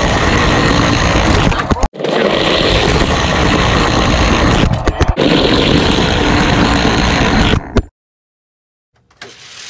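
Loud, steady rolling noise of a small camera-carrying toy car running fast down a plastic race track, with the camera mounted right on the car. It breaks off briefly about two seconds in and stops abruptly near the end, followed by a second of silence.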